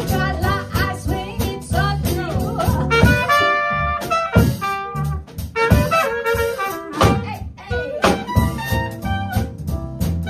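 Swing jazz band playing an instrumental passage, with brass horns to the fore over a steady low bass line.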